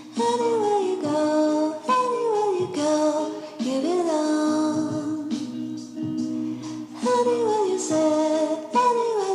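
Background music: a song with a high voice singing a melody in short falling phrases over held instrumental notes.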